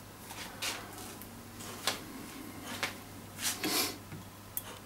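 Light handling noises at a painting desk: about half a dozen brief rustles and soft knocks as brush and tools are moved, over a faint steady low hum.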